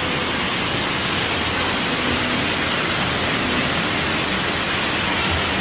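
Steady rushing and splashing of water from a water-park play structure's sprays and fountains pouring into shallow water, an even hiss that does not let up.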